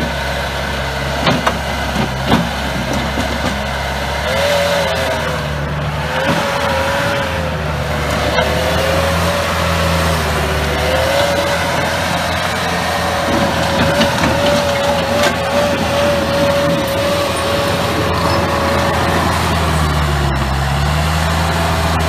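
2009 Bobcat T190 track loader's diesel engine running as the machine drives on its rubber tracks. A few sharp knocks come in the first couple of seconds, and a wavering whine rises over the engine about four seconds in and carries on.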